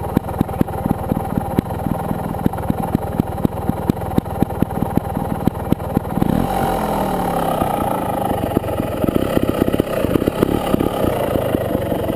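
Sherco Trial 300 single-cylinder two-stroke trials motorcycle engine idling with an uneven, popping exhaust beat. About six seconds in, a quick throttle blip sends the revs up before they fall back to idle, and the engine picks up a little again near the end.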